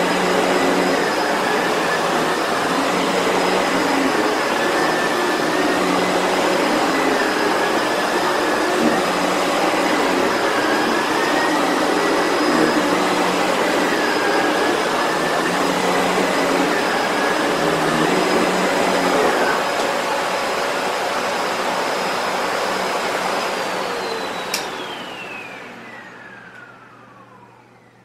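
Sebo Felix vacuum cleaner running at full power, with a whine that wavers slightly in pitch. Near the end it is switched off and the motor spins down with a steadily falling whine and fading noise, and there is a sharp click partway through the wind-down.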